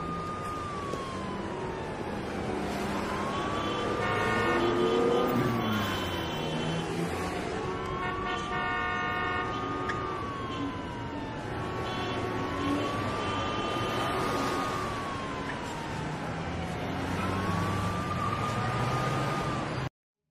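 A siren wailing in slow cycles, about every five seconds: each cycle rises quickly, holds high, then slides down, over a steady low traffic rumble. The sound cuts off abruptly near the end.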